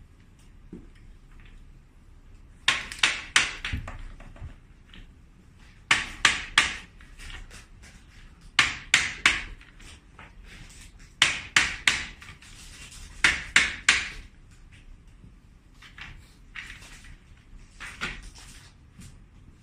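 Sharp hammer-like knocks in quick bursts of three to five, a burst every two to three seconds, as parts of a seat are struck to work them loose.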